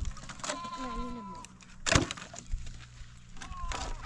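A sheep or goat bleats once, a wavering call about half a second in. Logs knock together as firewood is pulled from a woodpile, with one sharp wooden clunk about two seconds in and a few lighter knocks after it.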